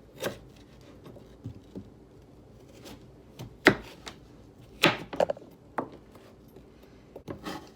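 A kitchen knife cutting acorn squash into cubes on a cutting board: a handful of sharp, irregular chops with pauses between them.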